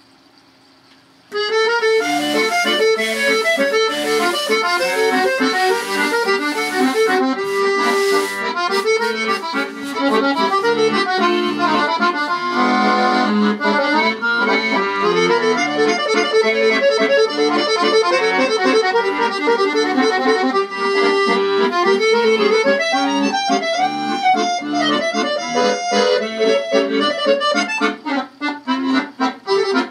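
Instrumental background music that starts abruptly about a second in and plays on with many quick notes.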